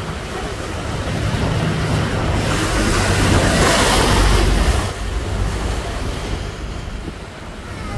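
Fast-flowing floodwater rushing and churning, with wind buffeting the microphone; the rush swells loudest in the middle, then eases.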